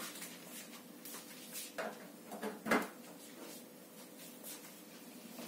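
Faint handling noises, a few rustles and knocks, as a wired mouse's braided cable is pulled and its USB plug pushed into a computer port; the loudest is a short clunk a little under three seconds in.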